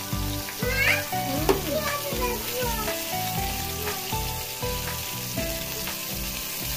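Whole pointed gourds sizzling as they fry in oil in a steel pan, turned now and then with a metal spatula. Music with a steady beat plays underneath.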